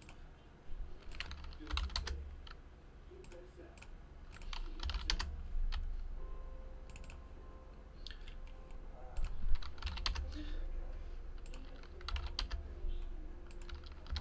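Computer keyboard and mouse being used: irregular clicks and key taps, scattered and uneven, with short pauses between them.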